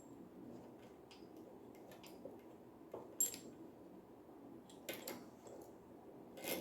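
Faint clicks and taps of shower head parts and fittings being handled and fitted together, with a sharper metallic click about three seconds in and a few more near the end.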